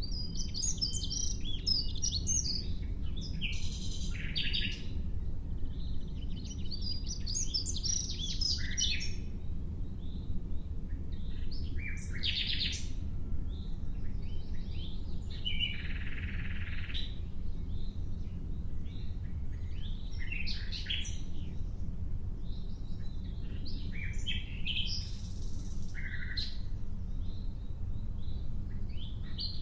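Nightingale singing: short, varied phrases of rapid trills, whistles and buzzy notes, one every few seconds with pauses between, over a steady low rumble.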